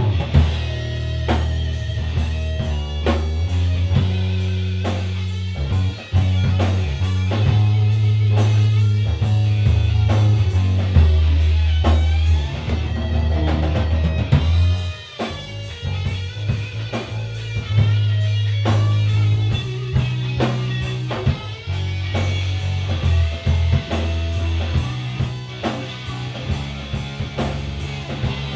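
A rock band playing live without vocals: electric guitar over a drum kit keeping a steady beat, with a loud bass line that moves every second or two.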